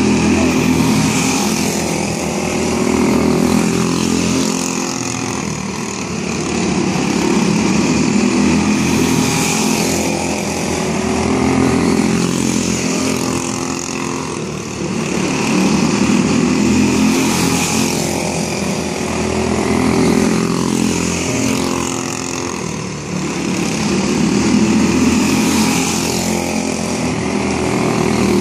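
Quarter midget race cars' small single-cylinder Briggs & Stratton Animal four-stroke engines running at racing speed around a small dirt oval. The sound swells and fades about every four seconds as the cars come round and pass.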